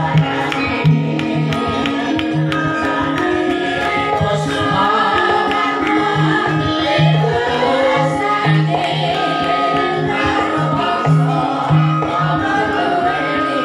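Live Javanese gamelan music with a woman singing over held instrument tones and repeated low drum strokes.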